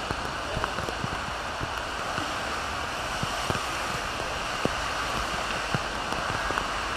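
Steady rain hiss with an irregular patter of single drops striking close by.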